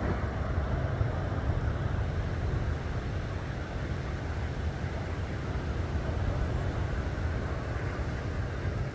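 Steady low rumble of wind on the microphone, with ocean surf washing behind it.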